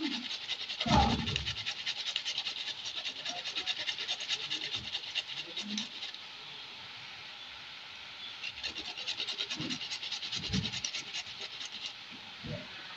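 Carrot being grated on a metal hand grater: a run of quick, rhythmic rasping strokes that stops for about two seconds midway, then starts again. A dull knock sounds about a second in.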